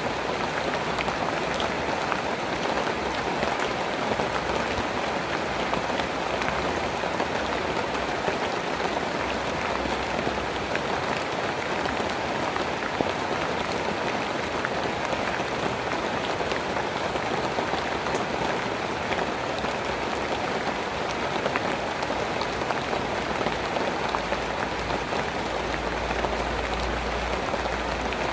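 Steady rain falling, a dense even patter of many small drops, with a low rumble coming in near the end.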